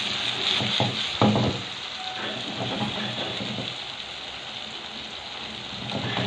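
Sausages frying in oil in a pan, a steady sizzle. There is a brief thump about a second in.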